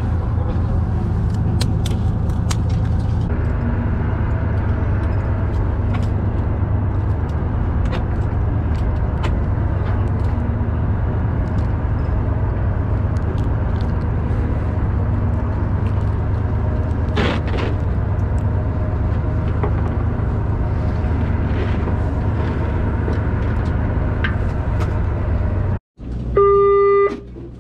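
Fishing boat's engine running steadily underway, a low rumble with wind and water noise over it. Near the end, after a short break, a loud horn blast lasting about a second.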